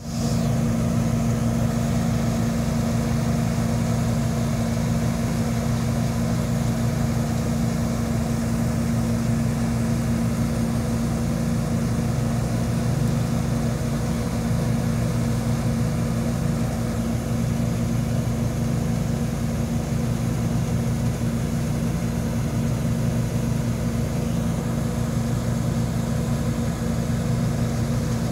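Diesel engines of a New Holland combine harvester and a John Deere tractor running at a steady speed, a continuous drone with a steady hum, as the combine unloads canola into the grain cart.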